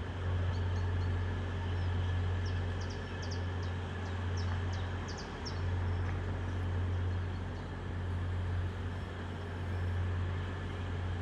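Steady low rumble that swells and eases every couple of seconds, with a small bird chirping a quick run of short high notes in the first half.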